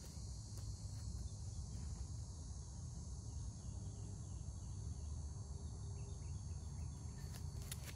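Steady outdoor ambience: a continuous high-pitched insect chorus of crickets or cicadas, over a low, even rumble.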